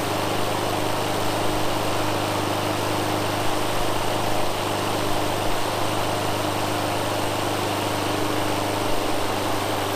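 Walk-behind rotary lawn mower running steadily at a constant speed, tipped back with its blade spinning.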